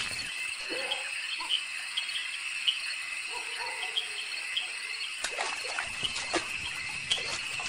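Crickets chirping in a steady high trill, with small pips about twice a second. A few scattered short clicks and plinks sound over it.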